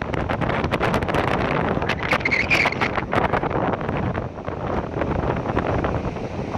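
Strong wind blasting across a phone's microphone: a steady rushing roar broken by crackling gusts. A brief higher-pitched sound stands out about two seconds in.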